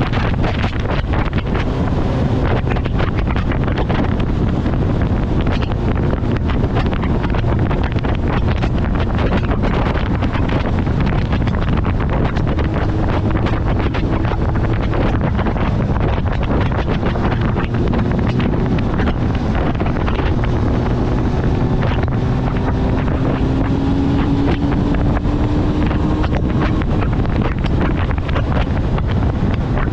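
Heavy wind noise on a helmet-mounted camera at riding speed, over the faint note of a Kawasaki ZX-9R's inline-four engine, which rises slowly in pitch past the middle.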